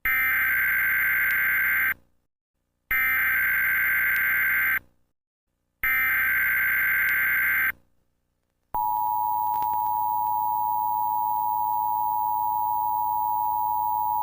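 Emergency Alert System SAME header: three bursts of digital data tones, each about two seconds long, with short gaps between them. About nine seconds in, the steady two-tone EAS attention signal begins. These tones announce an emergency alert, here a special marine warning.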